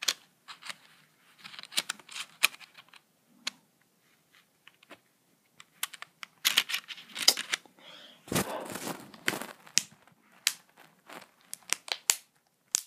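Samsung Galaxy S4's plastic back cover being snapped onto the phone: a series of sharp clicks as its clips catch, with some handling rustle. The clicks come thickest from about six to ten seconds in.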